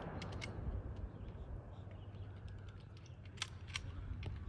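Echo of a firing party's rifle volley rolling away and fading over the first second, then faint outdoor quiet broken by a few sharp clicks.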